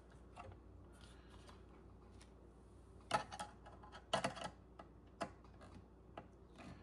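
Faint, scattered metal clicking and clatter as the Thermalright Peerless Assassin 140 cooler's mounting screw is worked to catch its thread, with a cluster of clicks about three seconds in, another about four seconds in, and a single click a second later.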